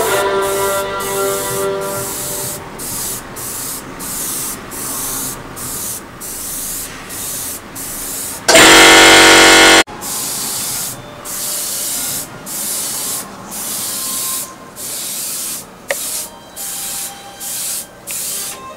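Sata Graph3 airbrush spraying in short hissing bursts as the trigger is opened and closed, with brief pauses between strokes. About halfway through there is a much louder blast of air lasting just over a second. Faint background music is underneath.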